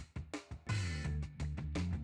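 Background music: drum hits, then a run of sustained bass notes with drums from about two-thirds of a second in.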